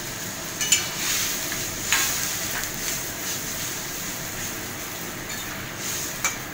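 Curry with mustard paste, potatoes and drumstick pieces cooking in a pan with a steady hiss. A utensil stirs it, knocking sharply against the pan about three times.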